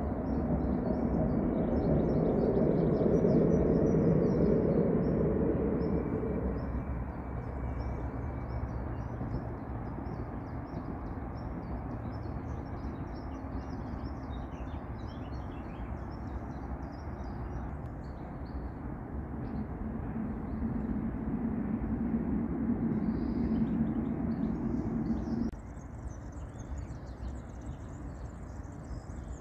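Outdoor ambience: small birds chirping and twittering over a steady low rumble. The rumble swells for the first few seconds and again later, then drops away suddenly near the end.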